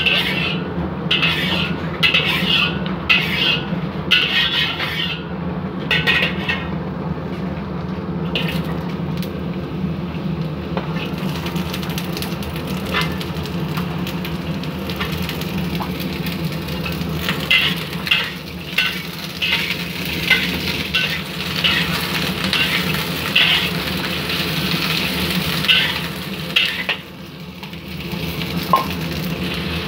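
Sliced onions sizzling in oil in a metal wok, stirred with a metal spatula that scrapes against the pan in short strokes. A steady low hum runs underneath.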